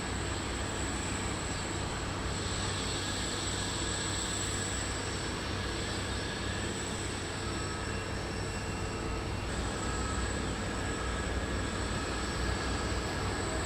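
Jet airliner engines running steadily, an even rumbling roar with a thin, steady high whine on top.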